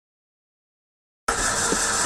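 Car's starter motor cranking the engine, a steady mechanical whir that cuts in suddenly about a second in after silence; the engine is hard to start.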